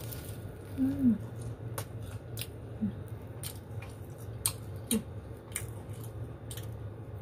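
Scattered crisp clicks and crackles as fingers break open a fried getuk ball, its crispy cassava crust cracking.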